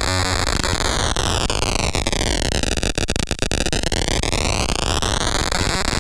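ARP 1601 sequencer clone clocked at audio rate by the TTSH's square-wave oscillator, its stepped voltage output sounding as a harsh, buzzy synthesizer tone. The pitch glides down for about three seconds, then back up, with a few clicks along the way.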